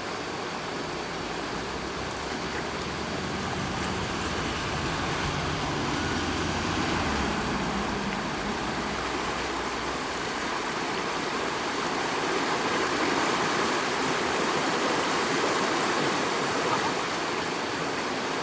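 Steady rushing noise like flowing floodwater, with a low engine hum underneath that fades out about seven seconds in.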